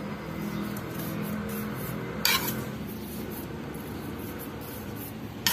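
A metal ladle stirring shredded young coconut and brown sugar in a wok: soft rubbing and scraping through the mixture, with a sharp knock of metal on the pan about two seconds in.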